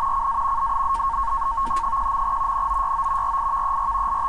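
NAVTEX marine broadcast from 518 kHz received in upper sideband, heard as its SITOR-B data signal: a steady pair of close tones near 1 kHz over band hiss. The data is a Coast Guard bulletin being decoded as it arrives.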